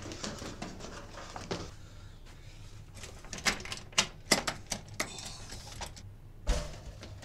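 Quick footsteps going down stairs, then a door handle worked hard: a run of sharp metallic clicks and rattles of the latch. Near the end comes a single dull thump.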